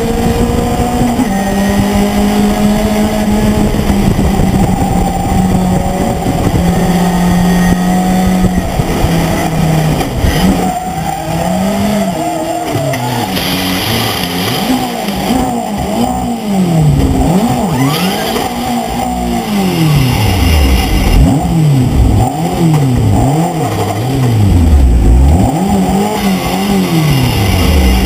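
Race pickup truck's engine heard from inside the cab, running steadily at high revs, then from about ten seconds in revved up and down over and over, about once a second, as the truck is driven through a gravel trap. Grit and gravel spray against the body for a few seconds partway through.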